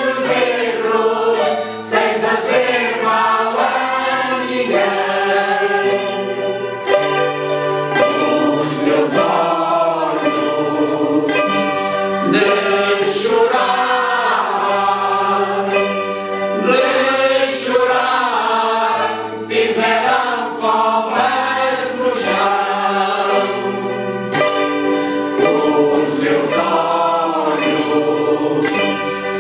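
An amateur mixed choir of older singers singing a song together, accompanied by steadily strummed mandolins and small string instruments and a guitar.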